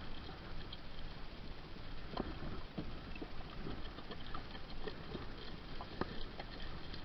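Handling noise from clothing rubbing against the camera's microphone, with scattered small clicks and knocks over a steady low rumble.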